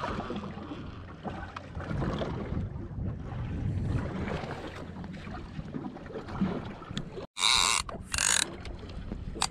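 Wind on the microphone and choppy water around a small boat. A sudden brief dropout comes about seven seconds in, followed by two short, loud bursts of handling noise as a fishing reel is moved right against the microphone.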